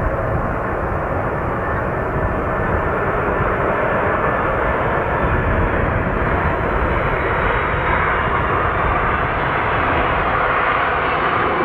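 Airbus A380's four jet engines: a loud, steady rush of jet noise that grows a little stronger toward the end.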